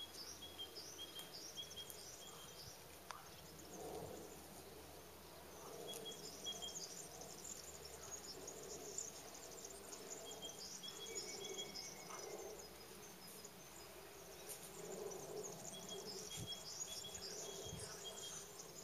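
Birds chirping and singing in woodland, one repeating a short phrase of four or five high notes several times, over faint outdoor ambience.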